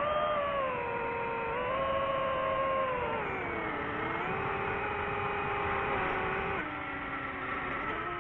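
DJI FPV drone's motors and propellers whining in flight, the pitch sliding up and down with the throttle: it falls around the middle, drops again about three-quarters through and climbs near the end.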